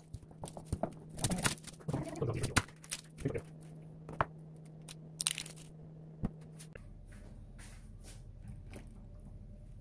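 Dry onion skin crackling and tearing as it is peeled off by hand, with sharp little clicks and knocks on the cutting board. Near the end this stops and a faint, steady low hum is left.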